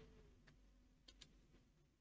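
Near silence: faint room hum with a few faint computer-mouse clicks, one about half a second in and another just after a second.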